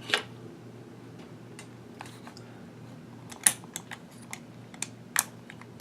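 Scattered sharp metallic clicks and knocks from an AR-15's upper receiver being handled and fitted onto the lower receiver, the loudest about three and a half seconds in. A faint steady hum runs underneath.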